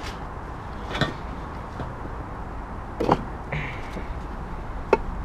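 Metal pry tool knocking and clicking against the old axle seal in a Ford Fiesta ST's aluminium transmission case as it is levered out. Four sharp knocks, the loudest about three seconds in.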